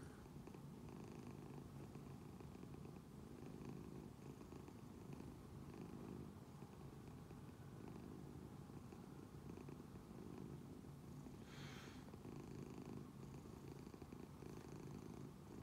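Domestic cat purring steadily and softly, a continuous low pulsing purr, with one brief soft noise about twelve seconds in.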